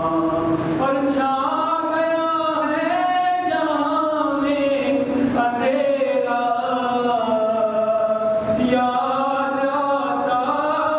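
A man chanting a mourning recitation unaccompanied, in long held notes that waver and glide slowly, with brief breaths between phrases.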